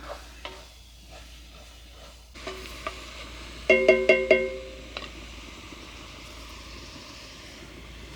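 A spoon or other utensil clinking against a ringing kitchen vessel, such as a jar or pot, in a quick run of about five strikes a little past the middle. Softer clicks and handling knocks come before and after, over a faint steady hiss.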